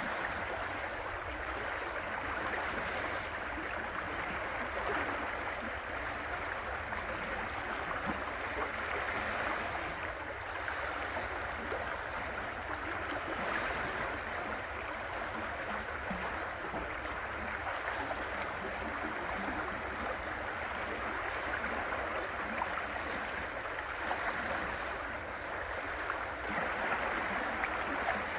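River water rushing and gurgling steadily over rocks, a continuous even wash of sound with slight swells.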